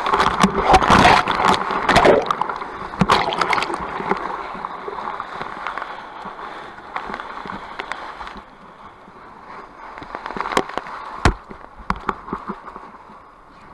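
Whitewater river rushing around a raft, with splashing and sharp knocks. It is loudest in the first four seconds, then settles to a steadier rush with a few more knocks.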